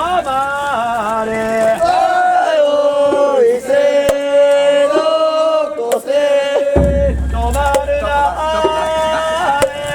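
Festival float music: a high melody held in long, wavering notes with a few sharp drum-like strikes, and a low rumble underneath near the start and again in the latter part.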